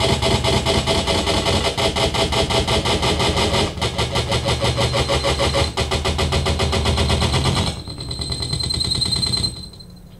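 Live electronic noise music from a laptop and effects setup: a dense, rapidly pulsing wall of distorted noise. It cuts out about eight seconds in, leaving a thinner sound with a steady high whine, which stops just before the end and gives way to quiet room tone.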